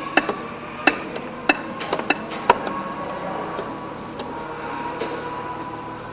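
Electric linear actuators moving hinged plywood panels: a faint steady motor whine under irregular sharp clicks and knocks, most of them in the first two and a half seconds.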